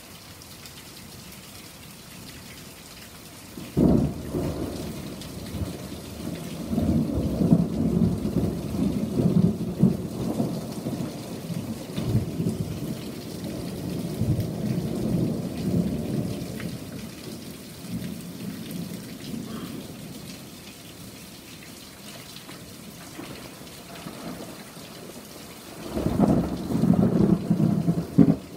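Thunder: a sudden clap about four seconds in that rolls on as a long rumble for over ten seconds before fading, then a second loud clap near the end, with rain falling steadily underneath.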